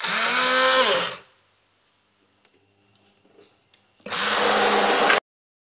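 Electric immersion blender pureeing a pot of cooked fava beans and garlic. It runs twice for about a second each: the first run rises then falls in pitch, and the second cuts off suddenly.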